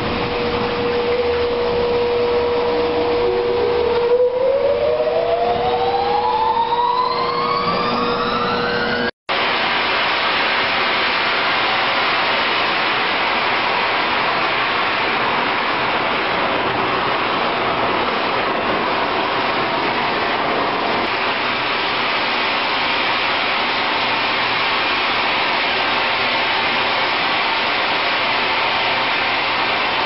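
IVAC PV500 pneumatic industrial vacuum system running with a loud, steady roar of suction while pumping out a mine sump. For the first nine seconds or so a steady hum sits in it, and a rising whine climbs for about five seconds. The sound then drops out for an instant and the steady roar carries on.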